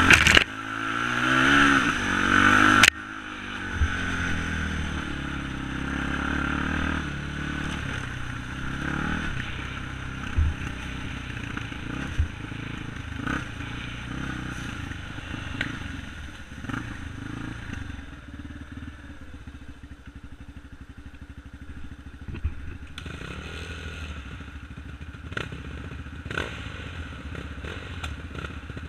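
ATV engine revving hard while riding over leaves, then cutting back suddenly about three seconds in. It runs on at changing speeds and settles to a steady idle about two thirds of the way through, with scattered knocks and clatter.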